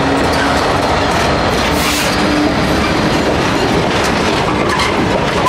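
Class 66 diesel locomotive and its cement tank wagons passing close by: a loud, steady mix of engine sound and wheels clattering over the rail joints, with a faint squeal of wheels on the track.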